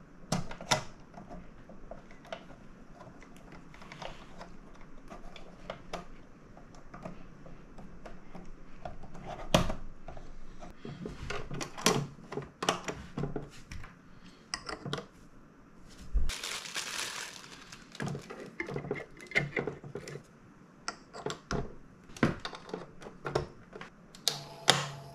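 Plastic parts of a Teenage Engineering PO-80 Record Factory kit being handled and snapped into place: scattered clicks and knocks, with a short burst of rustling about two-thirds of the way through.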